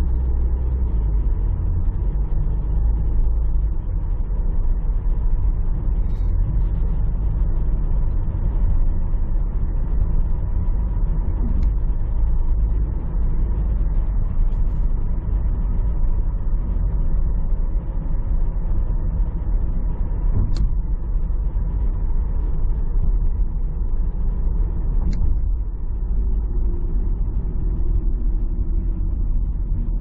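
Car driving on a city road, heard from inside the cabin: a steady low rumble of engine and tyre noise.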